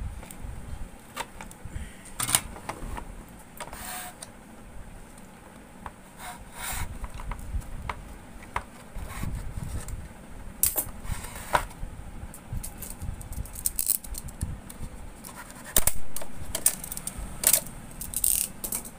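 Hand-tool scraping and clicking on plastic as a hole is made in a digital weighing scale's plastic case for a 12-volt wire: irregular clicks and short scrapes, with no motor running.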